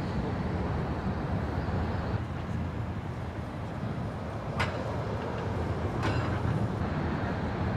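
Steady low rumble of road traffic, with a single sharp click about halfway through.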